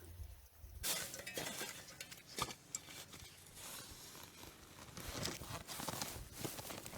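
Garden digging and handling of potatoes in soil: irregular small knocks, clicks and rustles, starting about a second in.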